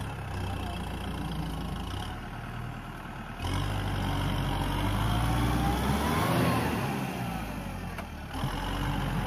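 Kubota M6040 tractor's diesel engine revving hard under load as the bogged tractor tries to drive out of deep mud. It gets louder about three and a half seconds in, climbs in pitch to a peak a little past halfway, then eases off.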